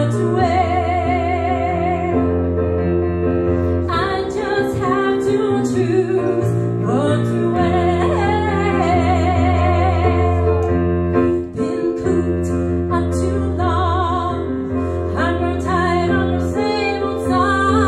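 A woman singing with vibrato, accompanied on a digital piano playing long-held bass notes and chords.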